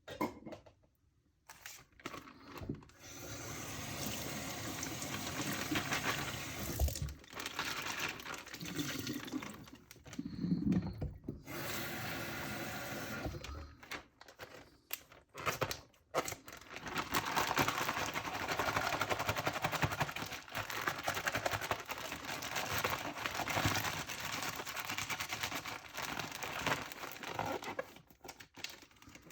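Kitchen tap running into a sink in several long stretches, cutting out and starting again a few times, with occasional knocks.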